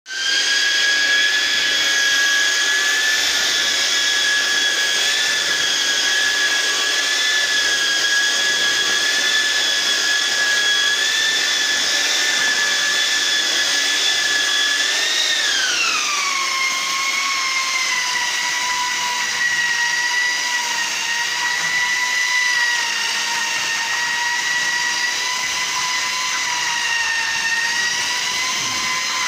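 Handheld electric paddle mixer running steadily, its whisk churning wet cement mortar, with a high motor whine. About halfway through, the whine slides down in pitch and stays lower.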